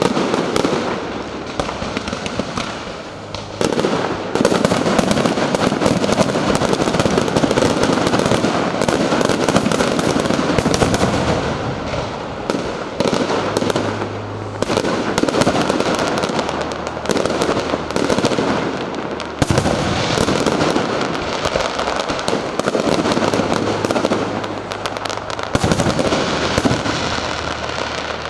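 Aerial fireworks display: a dense, continuous barrage of bangs and crackles, growing louder about three and a half seconds in.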